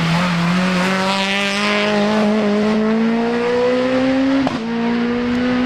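Hill-climb race car engine pulling hard uphill, its pitch rising steadily as it accelerates, with a quick upshift about four and a half seconds in before it climbs again.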